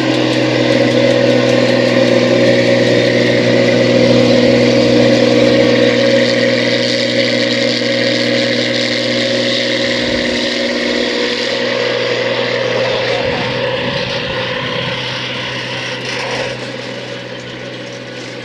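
Rice combine harvester running steadily with a constant engine hum and machinery noise, growing gradually quieter in the second half.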